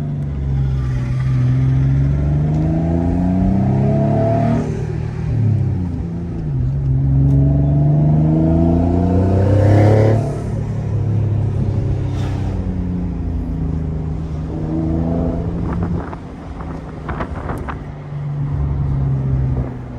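Twin-turbocharged Infiniti G35's 3.5-litre V6 accelerating hard, its pitch climbing twice with a drop at each gear change, then running steadier before easing off near the end. A short hiss of released air comes as the throttle closes about ten seconds in, which the occupants take for the wastegates.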